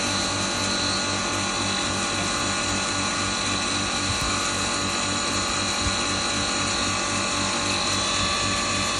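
Electric double-chamber maize (makka) grinding mill running steadily: a dense, even machine whine over a low throbbing hum.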